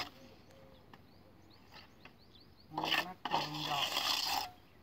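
Wooden roof strips scraping and rubbing against each other as they are handled and laid on the frame, a loud rasping stretch starting a little under three seconds in and stopping just before the end, with a man's voice mixed in. Faint bird chirps before it.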